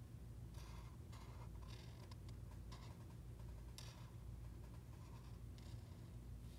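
Black marker tip scratching on paper in about six short strokes, with a steady low hum underneath.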